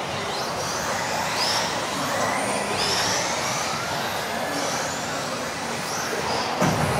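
Electric RC off-road cars of the modified class racing together: high motor whines that glide up again and again as the cars accelerate, over a steady rush of wheels and motors, with a short knock near the end.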